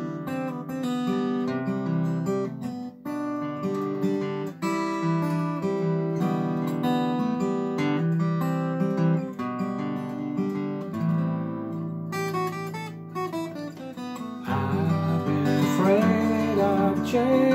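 Steel-string Takamine acoustic guitar fingerpicked in a rolling pattern of single notes and chords. About three seconds before the end, a man's voice comes in singing over it.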